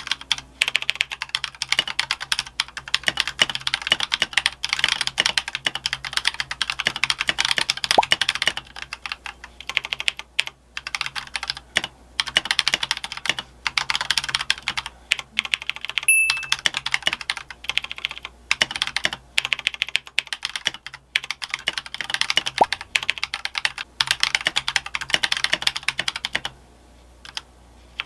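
Fast typing on an Akko World Tour Tokyo full-size mechanical keyboard: a dense run of key clacks with a few brief pauses, going nearly quiet for a moment near the end.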